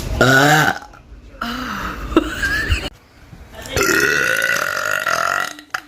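A woman burping loudly: a short, deep burp at the start, then a long, drawn-out burp about four seconds in.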